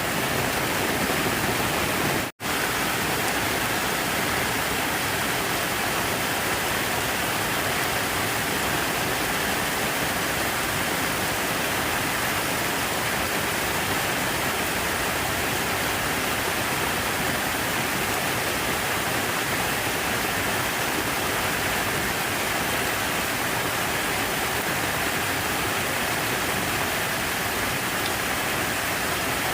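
Steady, unbroken rush of falling water, even in level throughout, except for a split-second dropout about two seconds in.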